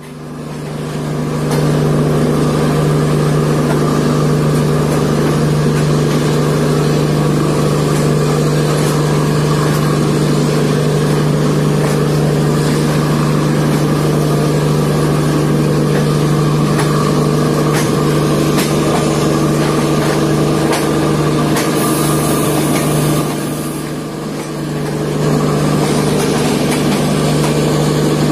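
Two LHB passenger trains running side by side at speed, heard from the open door of one coach: a loud, steady rolling noise of wheels on rails and rushing air, with a constant low hum. The noise swells up over the first two seconds and dips briefly about three-quarters of the way through, just after a short high hiss.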